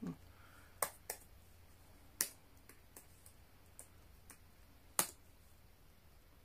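Sharp clicks and taps on a laptop keyboard, about a dozen at uneven intervals. The loudest come a little after two seconds in and about five seconds in.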